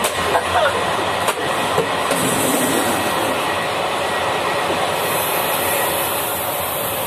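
Passenger train running on the rails, a steady rumble and rail noise heard from inside the carriage, with a few knocks in the first second or so.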